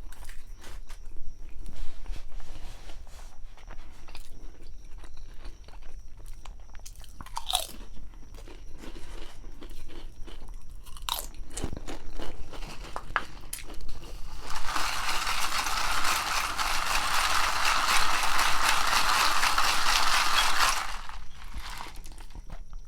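Close-miked chewing and crunching of a grinder sandwich: scattered smacks and clicks, then about six seconds of loud, continuous crunching in the second half.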